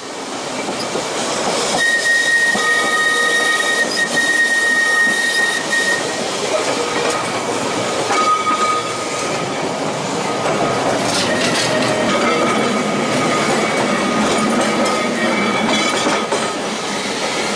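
Manx Electric Railway tram running along the track, heard from an open-sided crossbench car: a steady rattle of wheels on rail, with high wheel squeal on the curve from about two seconds in until about six seconds. Fainter squeals and a few sharp clacks come later.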